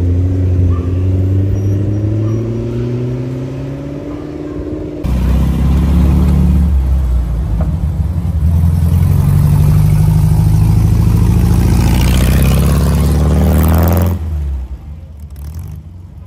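A McLaren 650S Spider's twin-turbo V8 runs as the car pulls slowly away, its note rising gradually. About five seconds in, this gives way to a vintage Bugatti Type 35's straight-eight engine, louder and deeper, revving up with a rising note as the car accelerates away. The engine sound falls away sharply about two seconds before the end.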